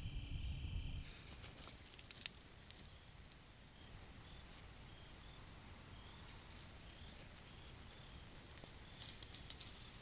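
Dry brush rustling and crackling as coyotes move through it, loudest about five seconds in and again near the end, with faint cricket chirps between. The first second holds a steady cricket trill over a low rumble.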